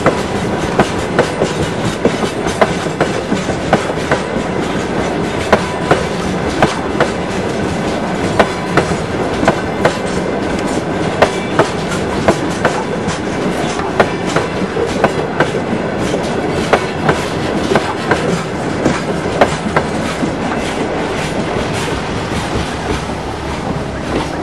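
Freight train wagons rolling past, their steel wheels clattering over the rail joints: frequent sharp clicks over a steady rumble. The sound eases slightly near the end as the tail of the train moves away.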